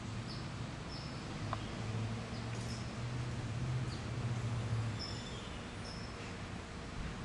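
Short, high chirps, one every second or so and sometimes two close together, over a steady low hum.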